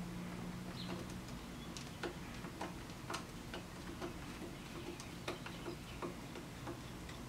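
Screwdriver backing steel screws out of a metal lathe's slide: faint, irregular small clicks and ticks, roughly two a second, over a faint steady low hum.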